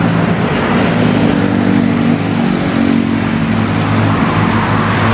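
A motor vehicle engine idling close by, a steady low hum.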